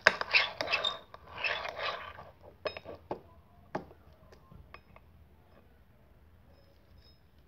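A few light clinks of a metal spoon against a small metal bowl as slime is stirred, after a couple of seconds of soft whispery rustling.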